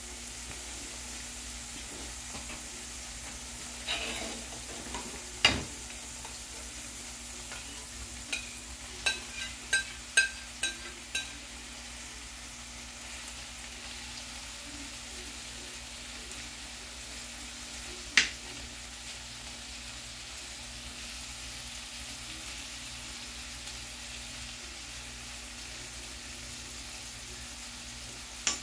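Onions, sliced meat and chopped tomatoes frying and sizzling steadily in a frying pan while being stirred. Sharp clinks of the utensil against the pan and dishes come in a quick run about a third of the way in, with one more past halfway.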